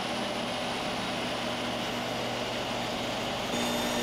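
Table saw ripping a board with the blade tilted for a bevel cut: the steady run of the motor and blade with the noise of the cut. It gets louder and brighter about three and a half seconds in.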